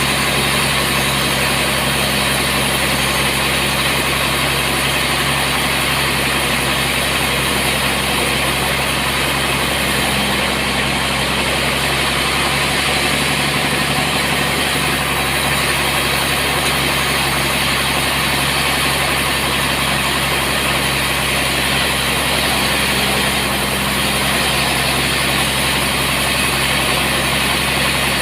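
Sawmill machinery running steadily: an even, loud engine drone with a broad hiss over it, unchanging throughout.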